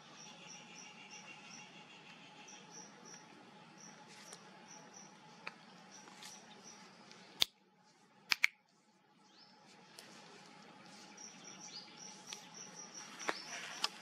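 Insects chirping in a quick run of short pulses, several a second, over a faint steady drone. Three sharp clicks come a little past halfway, and the background briefly drops away around them.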